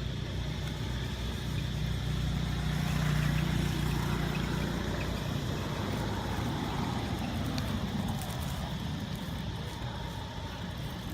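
A motor engine hums steadily, loudest about three seconds in and fading out about halfway through, over a steady outdoor noise.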